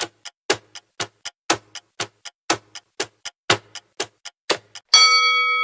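Countdown-timer sound effect: a clock ticking about four times a second, louder and softer ticks in turn. About five seconds in, a single bell-like ding rings out, marking the time running out.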